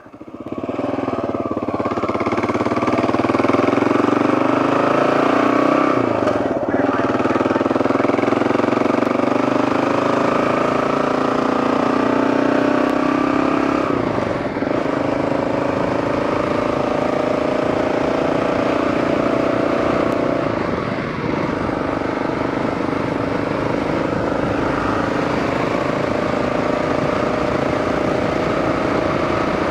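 Dual-sport motorcycle engine pulling away and accelerating, its pitch rising, with a few brief dips in level through gear changes, then running at a steady road speed. Wind noise rushes over the helmet microphone throughout.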